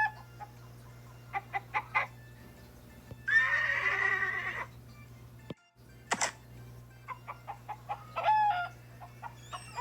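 Chicken clucking in short bursts, with one longer, rougher call about three seconds in.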